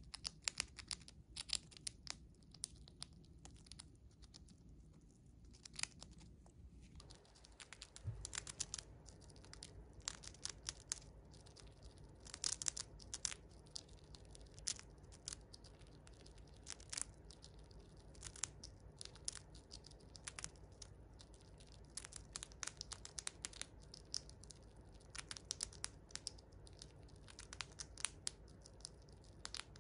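Siberian chipmunk crunching dried vegetable chips: quick, irregular runs of small crisp crackles.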